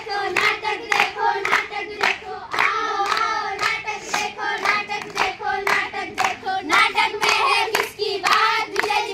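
A group of girls singing together and clapping their hands in a steady rhythm.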